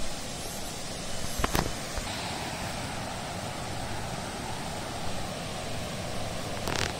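Steady rushing of water from a waterfall and rocky rapids, with two brief knocks, one about a second and a half in and one near the end.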